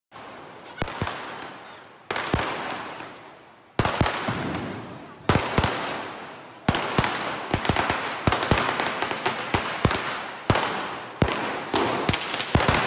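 Diwali firecrackers going off one after another, each sharp bang trailing off in an echo that slowly dies away. The bangs come every second or so at first, then close together near the end.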